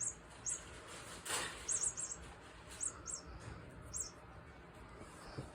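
A mouse squeaking: about a dozen short, very high squeaks in irregular clusters, with a brief rustling noise about a second in.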